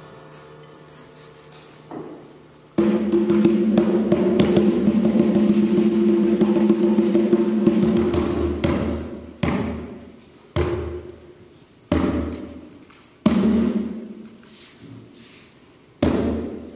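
Conga drum played by hand: after a quiet start, a fast rolling run of strokes about three seconds in that lasts some five seconds, then single loud strokes that each ring out, coming at lengthening gaps.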